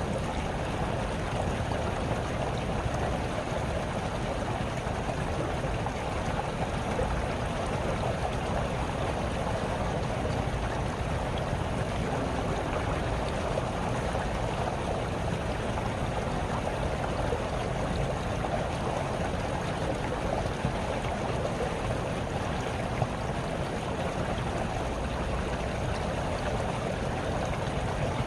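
A small brook babbling and trickling steadily.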